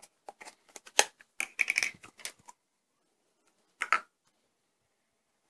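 Plastic lid being worked off a Play-Doh tub: a quick run of small plastic clicks and taps, one sharper click about a second in, then a single short sound near four seconds.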